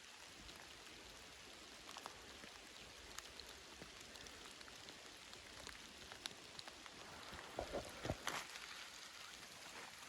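Faint patter of raindrops in a forest: a soft steady hiss with scattered drip ticks, and a short cluster of louder knocks about three-quarters of the way through.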